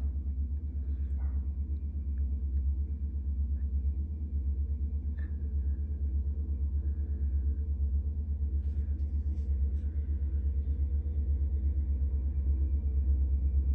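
Low, steady rumble of a Union Pacific road tie maintenance train's diesel running and moving past, with a rapid pulsing throb that grows a little louder near the end.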